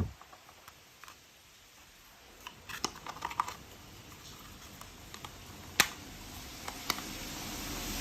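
Plastic toy train set pieces being handled and fitted together: a brief cluster of small clicks and rattles, then two sharp single clicks near the end.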